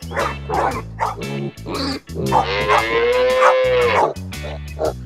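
Animal sound effects over children's background music: a few dog barks in the first couple of seconds, then one long cow moo from a little past two seconds to about four seconds.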